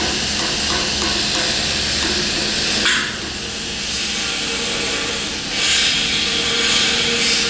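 Wire-feed welding arc running .045 flux-core wire with shielding gas, a steady crackling hiss on a vertical uphill weld. It stops about three seconds in and strikes up again about two and a half seconds later.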